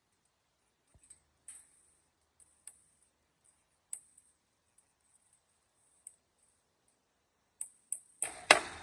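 Scattered light, sharp clicks and taps, then near the end a quick run of four louder knocks, the last one the loudest with a brief ring after it.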